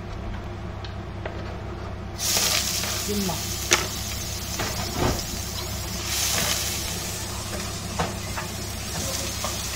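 Hot oil sizzling in a frying pan, switching on suddenly about two seconds in and then running steadily, with a few sharp clinks of a utensil.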